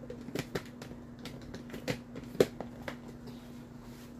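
Plastic Tupperware chopper container, its lid and red top knob giving scattered light clicks and knocks as it is handled and turned, over a steady low hum.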